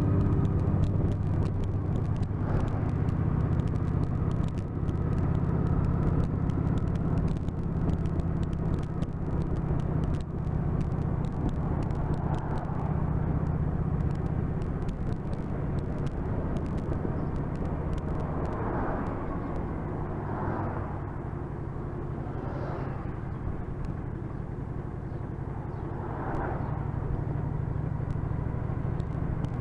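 Motorcycle engine running steadily under way, with wind and road noise, heard from the rider's seat; the sound eases a little past the middle as the bike slows, then picks up again.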